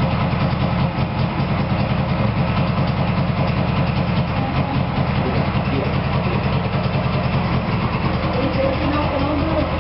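Puma GT DKW's freshly restored three-cylinder two-stroke engine idling steadily.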